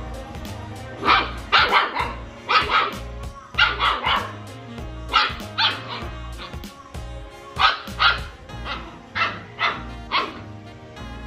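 German Shepherd puppy barking: about fifteen short, sharp barks in clusters of two or three, over background music.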